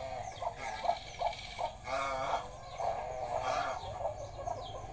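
Chickens clucking, with short calls repeated throughout, and chicks peeping high over them. A quick run of pulsed clucks comes about two seconds in.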